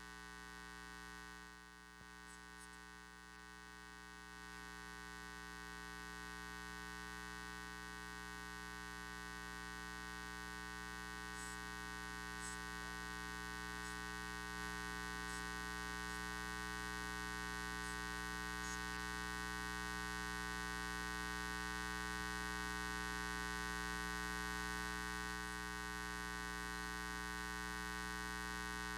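Steady electrical mains hum and buzz with many evenly spaced overtones, slowly growing louder.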